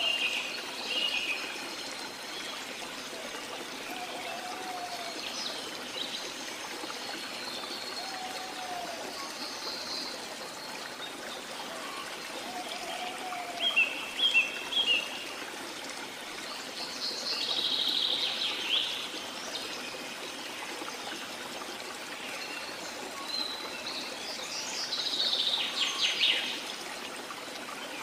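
Steady flowing water of a small waterfall, with birds calling over it. There are scattered chirps, a quick run of short calls around the middle and a burst of calls near the end, plus a low whistled note about every four seconds in the first half.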